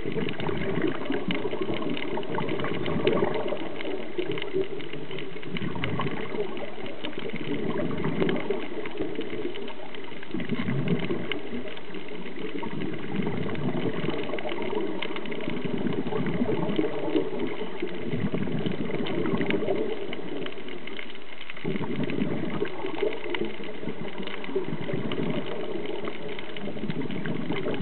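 Muffled water rushing heard through an underwater camera housing, swelling and easing every two to three seconds.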